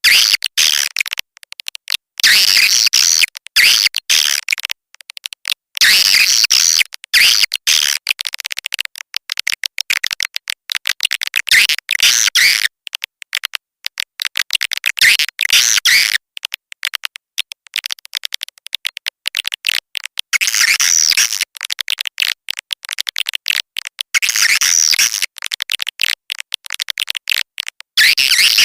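Edible-nest swiftlets twittering: a dense, rapid, high chirping that comes in bursts of one to several seconds with short gaps between. It is a lure call, played to draw swiftlets into a nest house.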